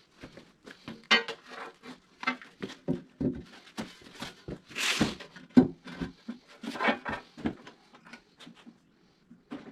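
Tools and hardware being handled, giving irregular clicks and knocks, with a short scraping rush about five seconds in.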